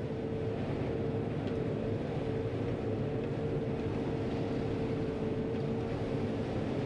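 John Deere 9500 combine running steadily while harvesting corn, heard from inside the cab: a constant drone of engine and threshing machinery with a steady hum-like tone over a low rumble.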